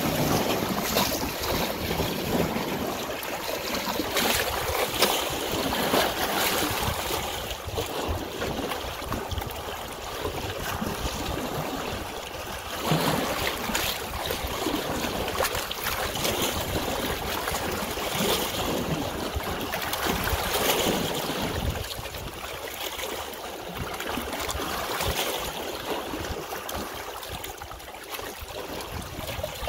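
Running water, a continuous rush with uneven swells and small splashes.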